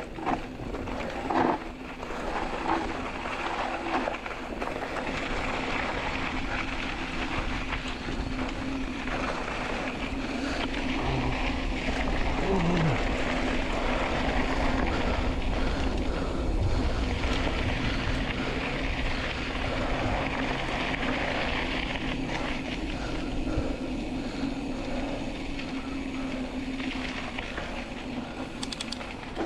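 Mountain bike riding along a dirt trail: a steady rush of tyre and wind noise with a constant low hum underneath, and a few knocks in the first couple of seconds.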